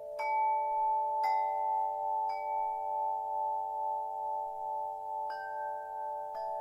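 Wind chime struck five times at uneven intervals. Each strike is a bright clink over long, overlapping ringing tones that swell and fade slowly.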